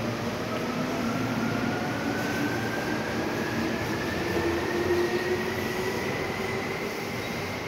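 Electric train's motors whining as it picks up speed, two tones rising slowly and steadily in pitch over the steady rumble of the station.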